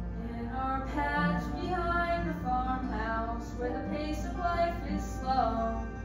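Music with singing: a melody rising and falling over backing accompaniment, from a live stage musical number.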